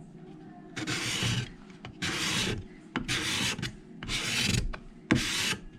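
Steel cabinet scraper pushed across wood in five short strokes about a second apart, each a scrape that starts sharply. The edge has been freshly sharpened and burnished and is raising fine shavings.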